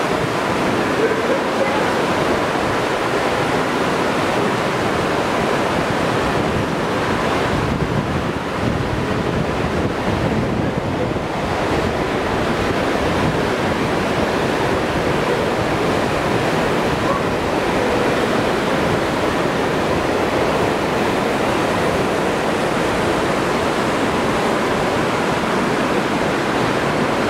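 Fast mountain creek rushing over rapids in a narrow rock canyon: a loud, steady roar of white water.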